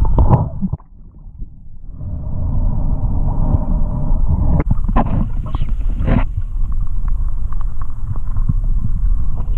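Underwater camera audio while snorkelling: a low rumble of water moving over the camera housing. It drops away briefly about a second in, then builds back up, with a few sharp clicks and knocks around the middle.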